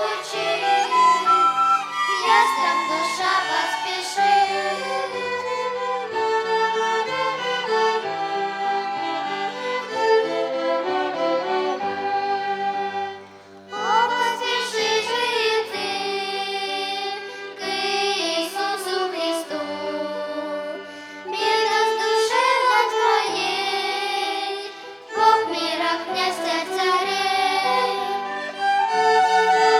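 Violin ensemble playing a children's song, with children singing along. The music drops away briefly twice, once about halfway through and again near the end.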